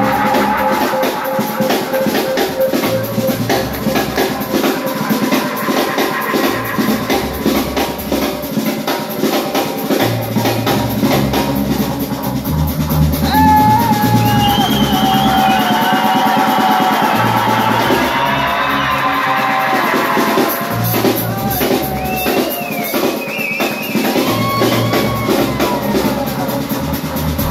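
Live reggae band playing a steady groove on drum kit, bass and electric guitar, with a wavering melody line over the second half.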